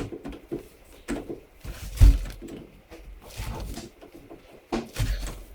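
Scattered knocks and clunks of objects being handled, with one heavy thump about two seconds in.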